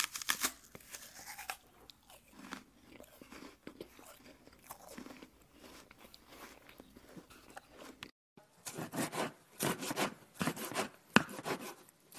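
Kitchen knife cutting cooked pig intestines on a thick wooden chopping block: soft, scattered cuts and crunches, then a quick run of chopping strikes, about three a second, in the last few seconds.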